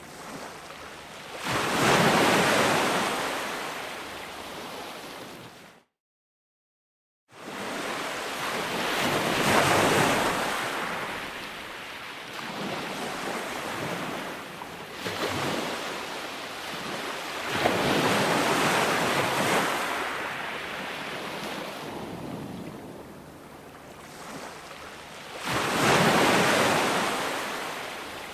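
Ocean waves breaking and washing up the shore, each one swelling to a peak and then slowly ebbing, about four times roughly eight seconds apart. The sound cuts out completely for about a second and a half around six seconds in, then resumes.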